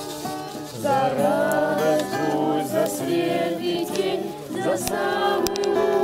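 A group of adults and children singing together, accompanied by a plucked stringed instrument.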